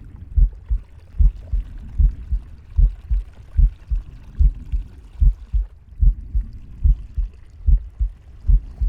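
A pig's heartbeat recorded up close: steady low thumps a little under one a second, each beat followed by a fainter second thump.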